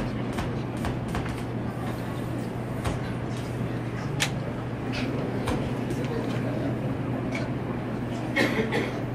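Hall ambience around a chess board: a steady low hum with faint murmur of onlookers, broken by a few sharp clicks, the strongest about four seconds in.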